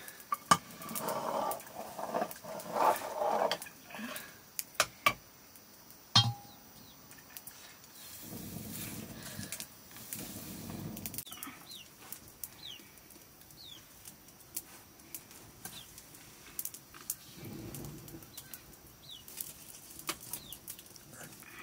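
Open wood fire burning under a blackened pot of water, with scattered sharp clicks and knocks from the fire and the sticks being handled. A few short, high, falling bird chirps come in the second half.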